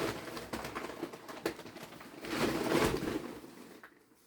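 Rustling and handling of a garment and its packaging, with a few light clicks and a louder stretch of rustling about two seconds in.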